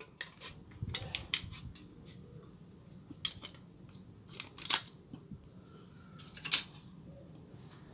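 Scissors cutting a thin copper sheet salvaged from the back of a phone LCD: irregular snips and crinkles of the foil, with a few sharper, louder clicks.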